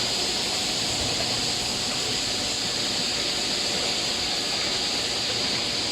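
Steady hiss, strongest in the high range, with a faint low hum underneath and no change throughout.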